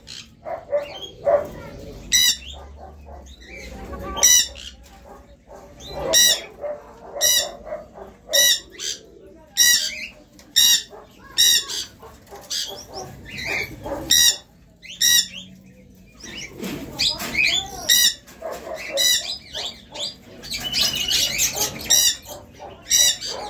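Caged birds calling: a loud, short, high-pitched call repeated about once a second over softer, lower calls from chickens and pigeons.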